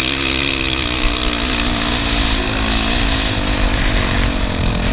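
2017 KTM 450 SX-F dirt bike's single-cylinder four-stroke engine running under the rider, held at a fairly steady speed with small rises and falls in pitch as the bike cruises across soft sand.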